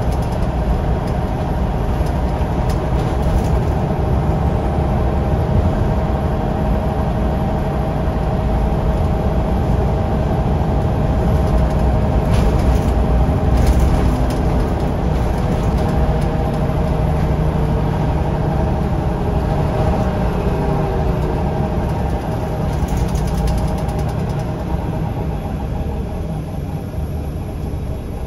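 Scania L94UB bus's rear-mounted 9-litre five-cylinder diesel and driveline running, heard from inside the passenger saloon: a steady low rumble with a faint whine above it. One whine slides down in pitch about twenty seconds in, and the noise eases a little near the end.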